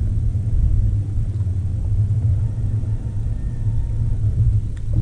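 A steady low rumble, with a faint click near the end.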